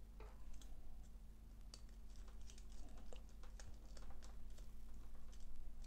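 Faint, irregular small clicks and rustles of insulated wires and a small plastic circuit board being handled and moved about.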